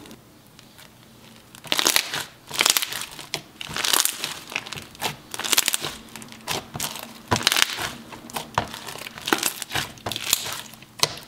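Pink Daiso-clay slime with rainbow and jumbo foam beads being squished, stretched and pressed by hand, giving a quick irregular run of crunching, crackling pops from the foam beads. The handling starts after a near-quiet second and a half.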